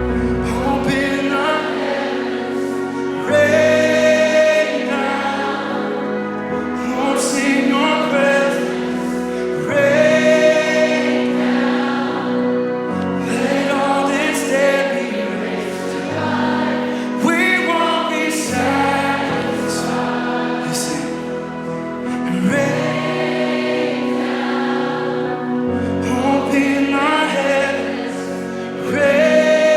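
Live contemporary worship music: a band playing sustained chords under a group of voices singing together.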